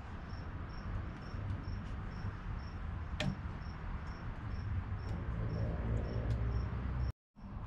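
A cricket chirping steadily, about two and a half short high chirps a second, over a low steady hum. There is a single sharp click about three seconds in, and the sound cuts out for a moment near the end.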